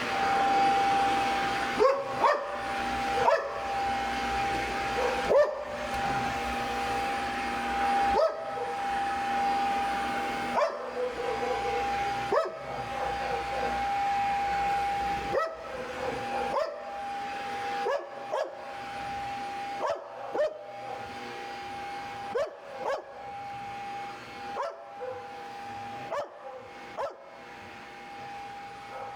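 Dog barking over and over, short barks every one to two seconds that grow quieter toward the end, over a steady high hum.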